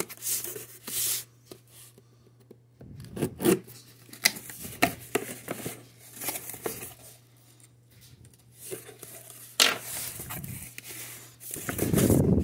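Cardboard shipping box being opened by hand: tape tearing and cardboard flaps pulled apart and folded back, a series of irregular rustles, scrapes and rubbing, busiest near the end.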